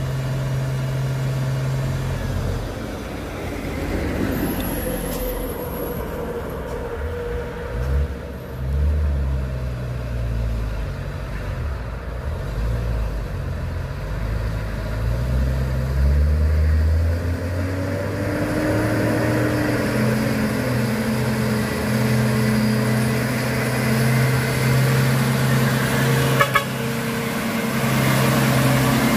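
Isuzu refrigerated box truck's diesel engine pulling away uphill. The engine note rises and drops several times as it works through the gears, then holds steady as the truck comes alongside. A brief sharp sound comes near the end.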